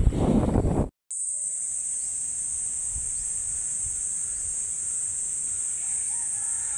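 Wind and road noise on the microphone of a moving vehicle for about a second. After a sudden cut, insects make a steady, high-pitched, continuous drone.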